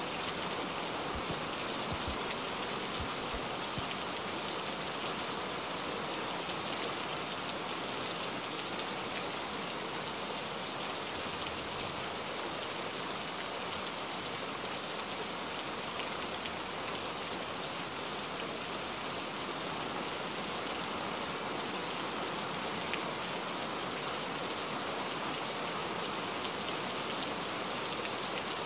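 Steady rain falling, an even, unbroken wash of sound.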